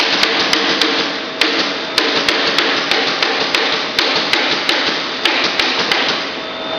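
A quick, uneven series of sharp knocks, about three a second, over a steady machine hiss that fades about six seconds in.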